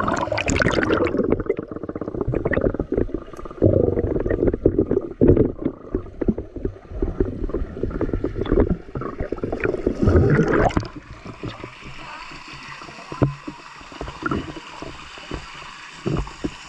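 Water splashing and sloshing, busy with sharp slaps for about the first ten seconds, then calmer.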